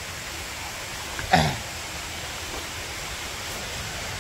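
Steady rushing of falling water. About a second in there is a single short sound that falls in pitch.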